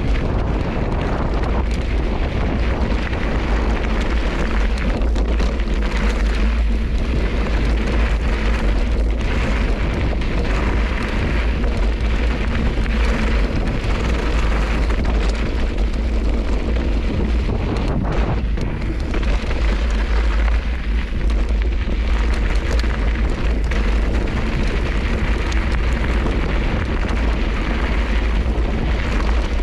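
Wind buffeting the action camera's microphone as a bike rolls down a rocky trail, over the steady crunch and rattle of its knobby tyres on loose gravel.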